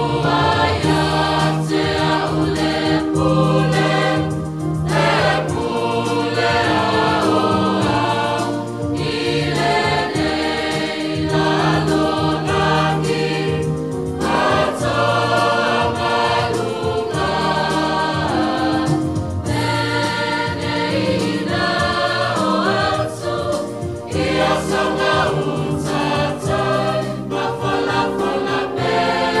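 Large mixed church choir, men and women, singing a Samoan hymn in harmony, in sustained phrases with brief breaks between them.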